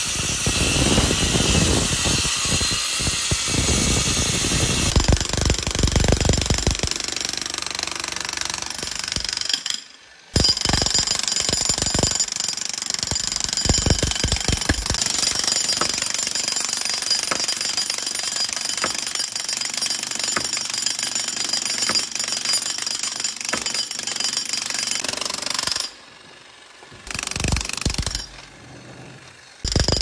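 A DeWalt concrete saw cuts through a concrete wall for the first several seconds, a steady high grinding whine. After a short break about a third of the way in, an electric jackhammer pounds and chips the reinforced concrete in fast continuous blows. Two more abrupt breaks come near the end, with a brief burst of hammering between them.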